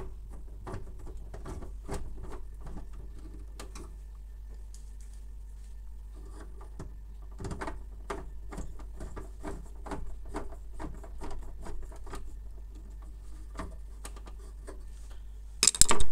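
Hand screwdriver driving screws into the plastic hinge mount of a laser printer: a string of small, irregular clicks and scrapes, easing off briefly around four seconds in. Near the end comes a loud, brief rustle close to the microphone.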